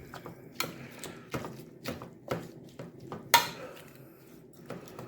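A utensil stirring chicken pieces in marinade, knocking and scraping against the dish in irregular strikes, with one louder clack a little past halfway.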